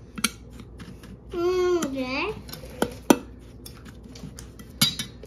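Metal fork clinking and scraping against a stainless steel puppy feeding pan as it stirs through ground dry kibble, with a few sharper clinks about three seconds in. About a second in, a pet gives one wavering, meow-like whine lasting about a second.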